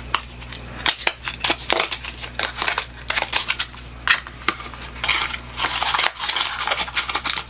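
Cardboard box of a makeup compact being handled and opened, with the compact slid out: a busy run of rustles, scrapes and small clicks.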